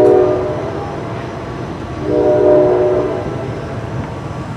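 An ambulance's air horn blasting twice, once at the start and again about two seconds in, each a chord-like blast lasting about a second, over steady traffic noise.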